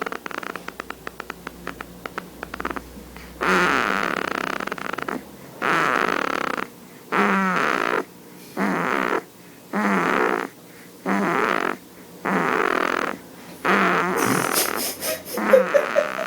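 A baby snoring: a couple of seconds of fast fluttering rattle, then a loud rasping snore on each breath, about one every second and a half.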